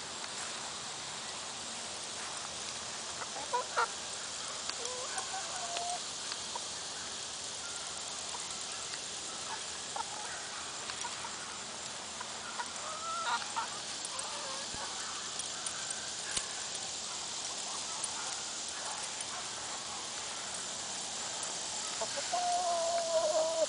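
Chickens clucking in short, scattered calls over a steady hiss, with one longer, slightly falling call near the end.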